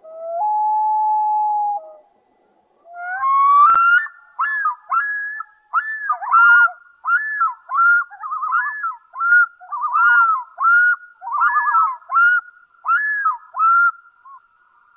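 Common loon calling: one long, steady whistled note, then after a short pause a rising note that runs into about a dozen repeated looping, wavering phrases, the pattern of the loon's yodel.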